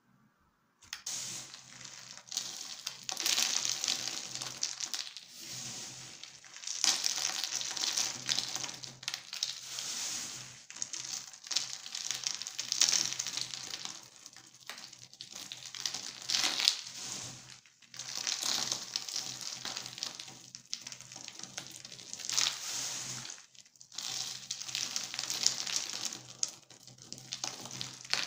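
Small dry cubes of cut soap crackling and rustling as handfuls are scooped, squeezed and sifted through the fingers, in repeated swells a second or two long with short pauses. It begins about a second in.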